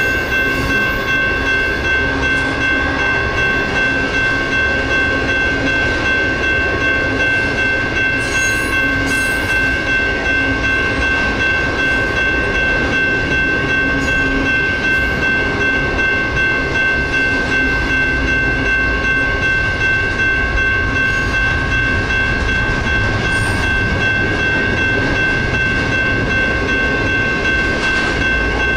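Railroad crossing warning bells ringing steadily and without a break while a Union Pacific intermodal freight train of trailers and double-stack containers rolls past with a low rumble of wheels on the rails.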